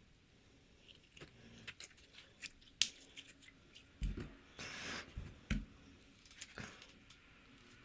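Slime being handled and squeezed: scattered small clicks and pops, one sharper click about three seconds in, and a short squishy swish with soft thumps in the middle.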